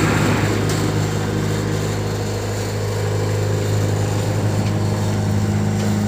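A machine's motor running steadily with an even low hum that does not change in pitch.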